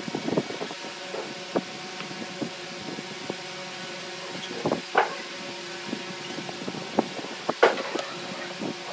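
Light knocks and taps of wooden blocks being handled and set down on a wooden board, the two sharpest about five seconds and about seven and a half seconds in, over a steady background hum.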